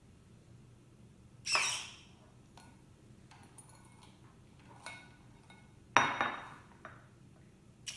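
A glass measuring cup is gripped and lifted by a robotic gripper, with a short noise about a second and a half in as the gripper closes on it. About six seconds in, the cup is set back down on a marble countertop with a sharp glass clunk, the loudest sound. A few faint knocks come in between.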